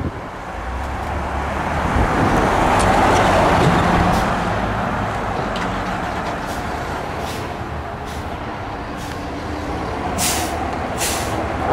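Chevrolet Silverado 3500HD pickup accelerating away, its engine and tyre noise swelling to a peak a few seconds in, then slowly fading. Near the end, two short hisses of air from a fire engine's air brakes.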